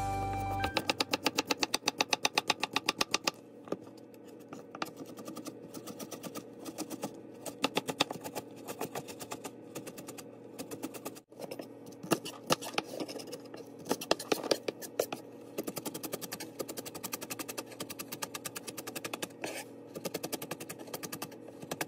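A chef's knife chopping vegetables on a plastic cutting board: a fast, even run of knife strikes at first, then lighter, less even chopping, with a short break about eleven seconds in.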